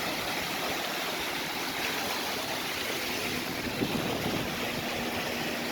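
Steady rushing wind on the phone's built-in microphone, with waves washing on the beach behind it. A faint low steady hum comes in about halfway through.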